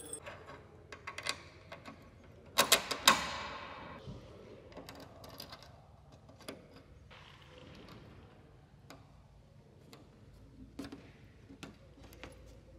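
Small metal fittings clinking and clicking as a bolt is fitted through a steel cable's thimble and an aluminium bracket. A quick cluster of loud metallic clinks with a short ring comes about three seconds in, followed by scattered light clicks.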